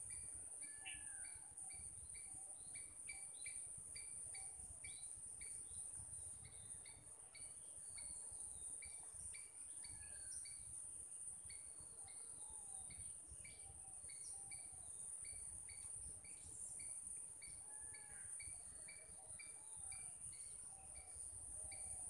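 Faint garden ambience. A steady high-pitched insect drone runs under short chirps that repeat about two or three times a second, and birds call now and then with short sliding notes.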